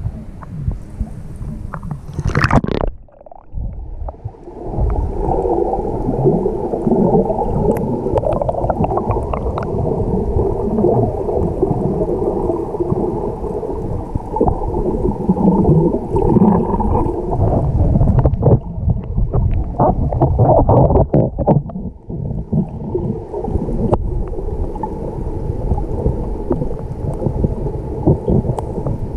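Muffled sloshing and gurgling of shallow sea water heard with the microphone underwater, a dull churning with the highs cut away. About two to three seconds in there is a short splashy burst as it goes under, then a brief dip before the churning settles in.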